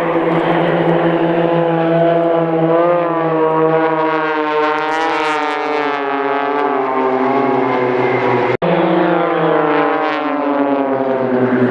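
Extra 300 aerobatic aircraft flying in close formation overhead, their piston engines and propellers droning with pitch that rises and falls as they maneuver. The sound drops out for an instant about eight and a half seconds in.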